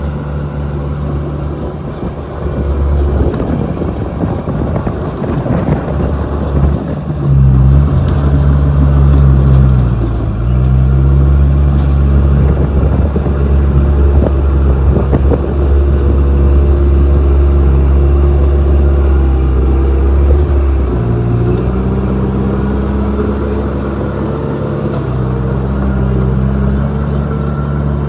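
Old crawler bulldozer's diesel engine working, getting louder about seven seconds in as it takes load. Its pitch sags and recovers twice, around ten seconds and again around twenty-one seconds.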